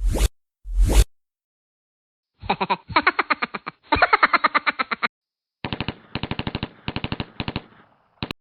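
Two short sudden thuds in the first second, then a string of rapid bursts of automatic gunfire, each burst a fast run of shots, with dead silence between the bursts. The longest bursts come early, shorter ones follow, and one very short burst comes near the end.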